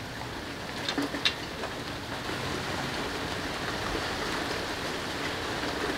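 Steady rain, an even hiss, with a few light clicks about a second in.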